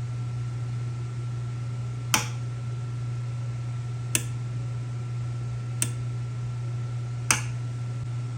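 Four sharp clicks, one roughly every one and a half to two seconds, over a steady low hum with a faint high tone.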